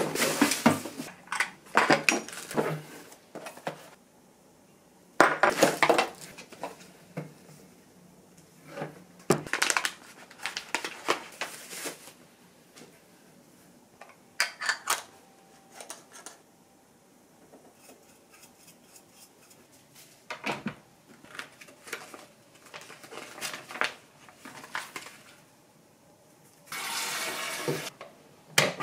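Unpacking an espresso machine's parts: plastic wrapping rustling, and cardboard and glass cups being handled and set down with knocks and clinks, in clusters with short pauses between. Near the end, a steady rushing noise for about two seconds.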